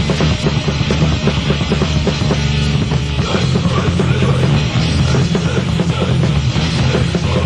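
Loud grindcore band music, with a drum kit playing fast, dense beats under a thick wall of sound.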